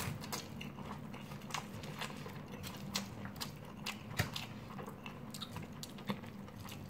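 A person chewing a mouthful of rice, with small scattered clicks and scrapes of a plastic spoon in a styrofoam food box. Under it runs a steady low hum from the room's air conditioner.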